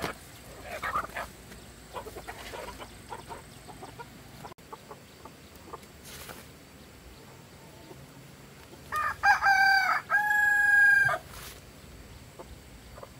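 A rooster crowing once, about nine seconds in: a few short notes and then one long held note. Chickens cluck faintly before it.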